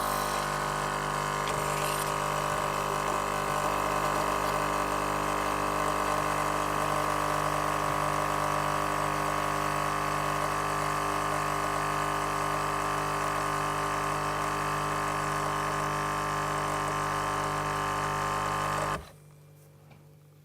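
Nescafé Dolce Gusto mini coffee machine's vibratory pump running as it brews a capsule into the cup: a steady, loud electric hum that cuts off abruptly near the end.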